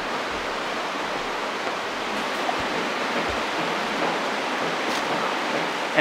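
A river flowing and rushing steadily, an even hiss of running water.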